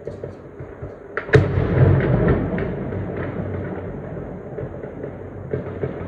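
A loud bang of weapons fire about a second in, followed by a long rolling echo that dies away slowly over several seconds. Fainter sharp cracks come before it and through the echo.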